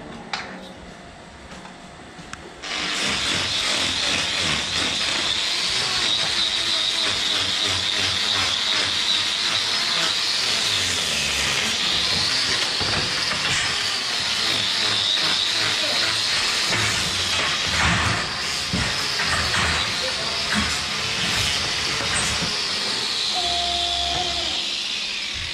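Electric angle grinder with a hoof-trimming disc cutting into a cow's hoof. It starts about two and a half seconds in and then runs steadily with a high whine that drops and recovers several times as the disc bites into the horn.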